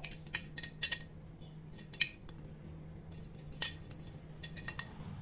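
Faint scattered taps and scrapes of a plastic-bag-covered hand rubbing butter over a glass baking dish, with a sharper knock about two seconds in and another past halfway, over a faint steady hum.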